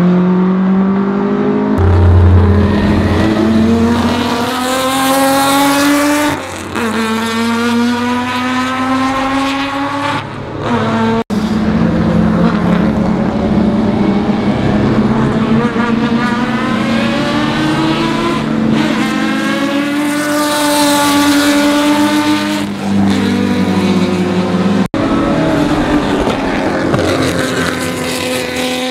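Ferrari 275 GTB's V12 engine at racing speed, revving up in repeated rising sweeps that fall back at each gear change. The sound breaks off abruptly a few times and picks up again.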